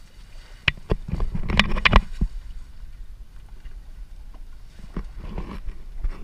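Wet fishing net being hauled by hand over the side of a wooden boat: a quick cluster of knocks and thuds against the hull about a second in, loudest near two seconds, then a few lighter knocks later.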